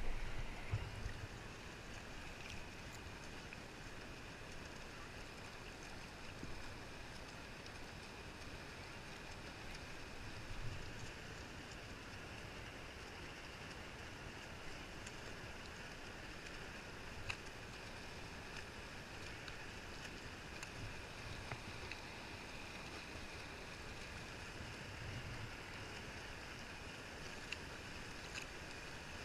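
Sea water lapping and gurgling steadily against a kayak's hull, with a few brief clicks and soft low bumps.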